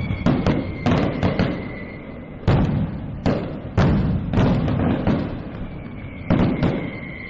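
A quick series of sharp bangs and thuds, irregular but often about half a second apart, over a thin steady whistle-like tone.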